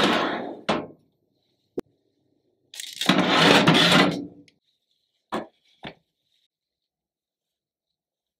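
Metal baking tray scraping as it slides along an oven rack, with a sharp click just after and another about a second later. About three seconds in, a second longer scrape as the tray slides back out, followed by two short knocks.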